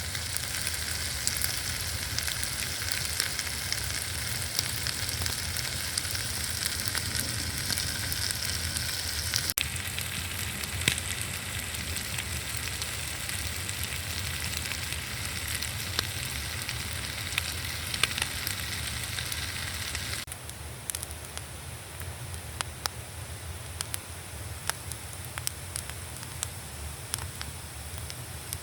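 Food sizzling and frying in a small frying pan, with a steady hiss and many small pops and spits. About two-thirds of the way in, the sizzle suddenly drops quieter, leaving a softer hiss with scattered pops.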